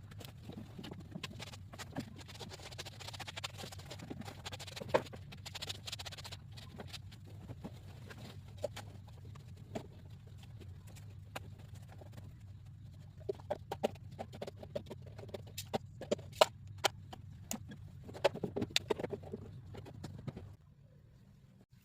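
Scattered light taps and knocks, coming more densely in the second half, over a steady low hum that drops away near the end.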